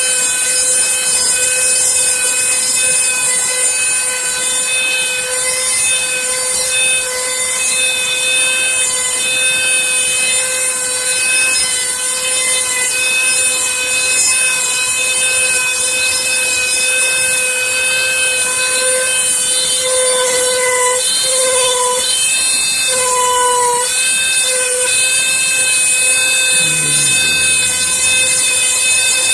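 Handheld rotary tool with an engraving cutting bit running at high speed, a steady high whine as it carves into birch. About two-thirds of the way through its pitch sags briefly several times as the bit bites into the wood under load.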